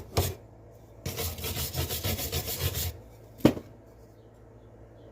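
Rapid back-and-forth rubbing strokes on a handsaw blade, scrubbing at it to bring out the maker's name, for about two seconds; then a single sharp knock.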